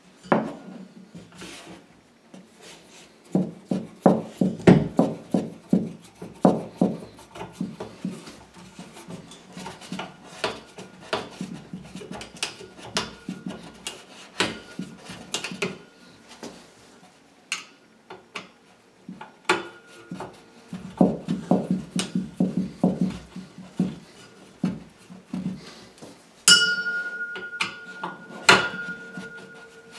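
A screwdriver turns a tiny screw into a chrome towel radiator's wall bracket, making runs of rapid metal clicks and scrapes. About 26 seconds in, a sharp metallic knock sets the chrome radiator ringing with a steady tone.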